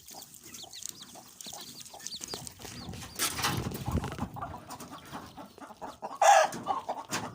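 Chickens clucking and chirping around their feed, with many short taps throughout. A rustling stretch comes about three seconds in, and a sharp, loud burst of sound just after six seconds.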